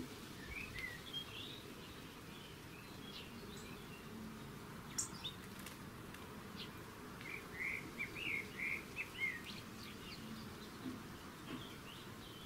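Sparrows chirping at a seed feeder in short, scattered calls, busiest between about seven and nine seconds in, with a few sharp clicks among them.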